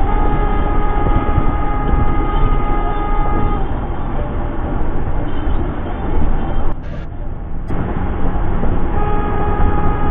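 Vehicle horn held in one long steady blast for about three and a half seconds, then sounding again near the end, over a loud low road rumble.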